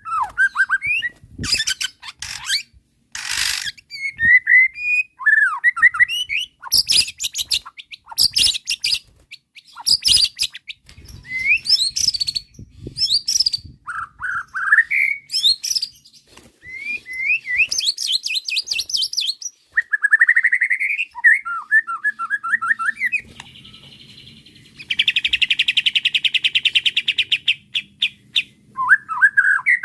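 White-rumped shama (murai batu) singing loudly in varied phrases of clear whistles, sweeping notes, rapid trills and harsh notes. Near the end it gives a long, fast, buzzy trill lasting about four seconds.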